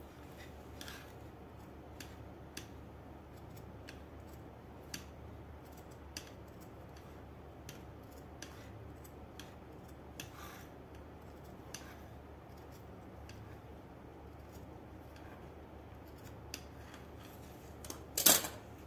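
Large metal tailor's shears snipping through cotton fabric, trimming the excess along a neckline seam: short, sharp blade clicks every second or so, with one much louder clack near the end.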